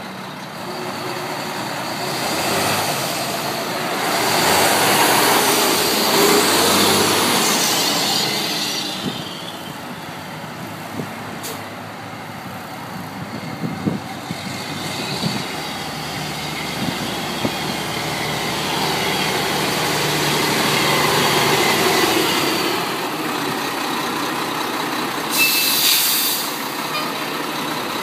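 2001 Mack RD688S semi tractor's diesel engine running as the truck drives, swelling louder twice as it pulls and passes, with a few clicks in the middle and a short hiss near the end.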